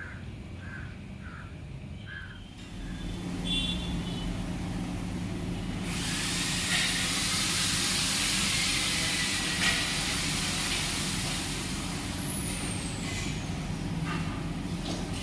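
A few crow caws, then a steady low mechanical hum and a loud hiss that starts suddenly about six seconds in and eases off about five seconds later.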